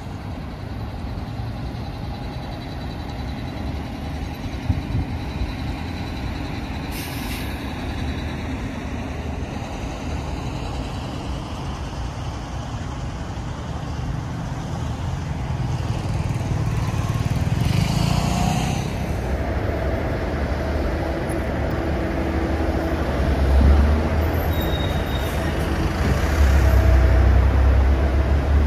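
City street traffic: a steady stream of cars, buses and trucks passing close by. The low rumble of heavy vehicles swells past in the last third, with brief hisses about a quarter and two-thirds of the way in.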